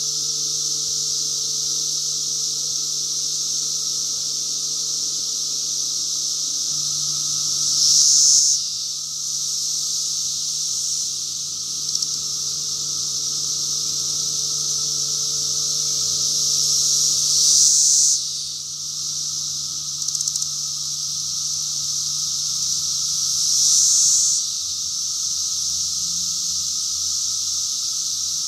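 Chorus of 17-year periodical cicadas singing in the trees: a steady, high-pitched buzz that grows louder three times, for about a second each.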